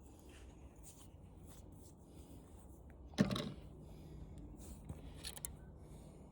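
Parts of a flat-screen TV being handled during disassembly: faint clicks and rustles, and one sharp knock about three seconds in.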